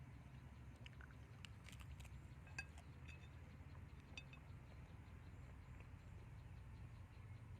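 Near silence broken by a few faint clinks of tableware and small clicks, clustered between about one and four and a half seconds in.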